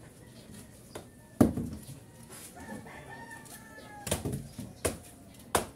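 A rooster crowing in the background, with one loud knock about a second and a half in and a run of sharp knocks near the end, roughly one every three-quarters of a second.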